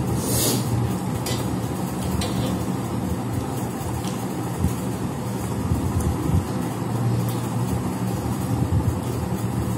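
A steady low hum, with a few short clicks and smacks from people eating rice by hand off metal plates and chewing.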